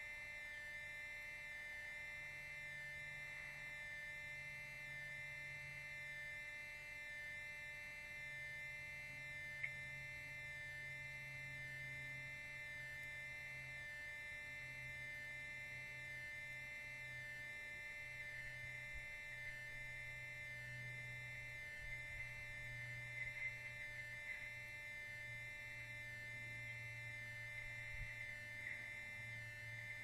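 Steady electrical hum and buzz, several unchanging tones held together, with a few faint ticks near the end.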